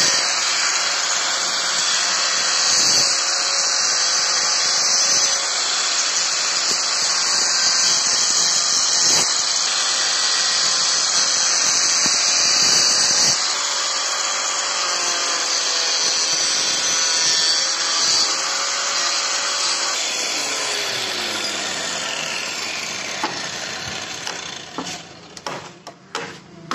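Handheld angle grinder with a cutting disc running and cutting through a PVC drainpipe, with a steady hiss of the cut and a whine from the motor. About twenty seconds in it is switched off and the motor winds down with a falling whine. A few knocks follow near the end.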